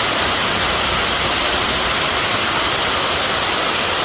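Steady hiss of rain falling on a wet street.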